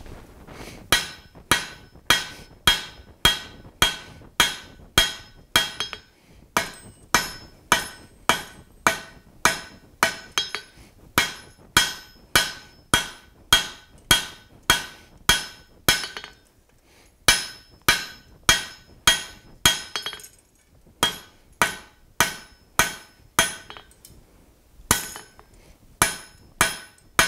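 Hand hammer striking a red-hot steel bar on an anvil in a steady rhythm of about one and a half blows a second. Each blow rings with a bright metallic tone. The runs of blows break off briefly every few seconds. This is a blacksmith drawing out the bar with overlapping blows.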